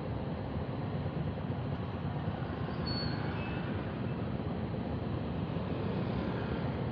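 Motorcycle engine running, with surrounding street traffic, as a steady low rumble.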